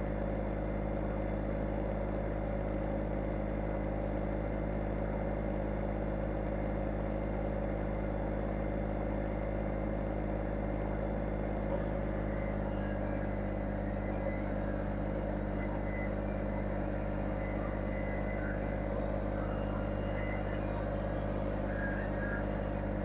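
An engine running steadily at an even speed, with no revving. A few faint high chirps come in over it in the second half.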